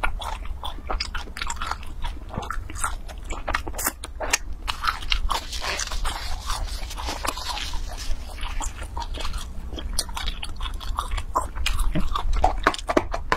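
A person chewing crunchy food close to the microphone, with dense, irregular crisp crackles of it breaking between the teeth.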